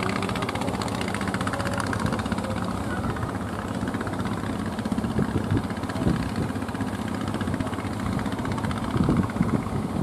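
A small outrigger fishing boat's motor running steadily as the boat pushes out through breaking surf, with wind and surf noise underneath and a few low buffets late on.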